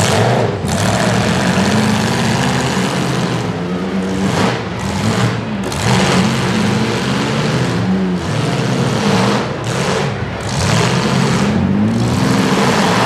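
Demolition derby trucks' engines revving, the pitch rising and falling again and again over a loud mix of engine noise.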